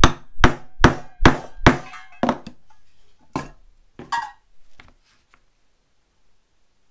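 Mallet striking a steel leather punch through hippo leather to punch stitching holes: five hard blows about two a second, then several lighter, more spaced taps.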